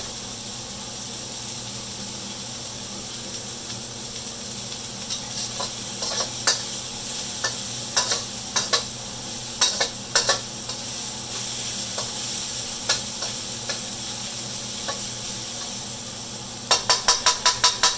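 Vegetables sizzling steadily in oil in a wok as they are stir-fried. A spatula clicks and scrapes against the wok now and then, with a quick run of clicks near the end.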